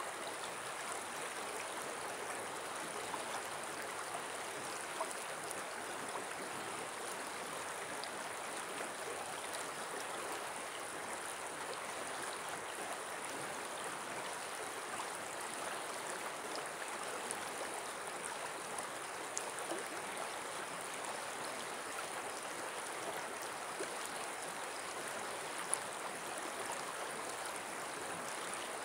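Steady rush of a shallow river flowing over a stony bed, with a few faint ticks.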